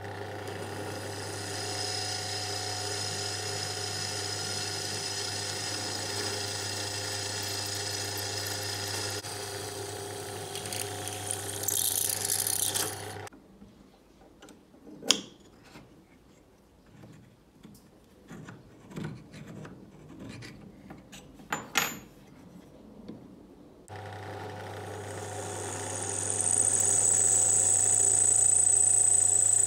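Benchtop drill press motor running steadily while drilling aluminium, with a high whine from the bit cutting near the end. The motor stops about 13 seconds in and starts again about ten seconds later; in the quiet between come scattered metallic clinks and taps as aluminium jig parts and a drill bit are handled on the bench.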